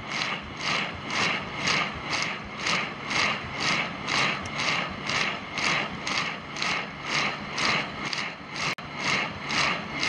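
Front-loading washing machine drum turning with wet laundry sloshing, heard from inside the drum: an even, rhythmic swish about two or three times a second.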